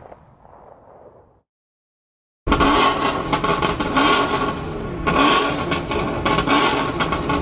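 Faint sound fades out into a second of dead silence, then loud car engine noise cuts in abruptly and runs on, with revving.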